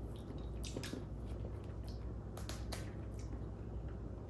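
Faint, scattered small clicks and wet squishes of cooked crab pieces being handled and tossed in sauce, over a steady low hum.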